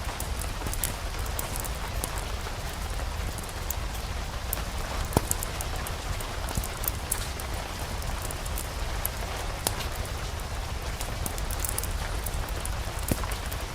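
Steady rain, with scattered sharp clicks and pops over a low steady rumble.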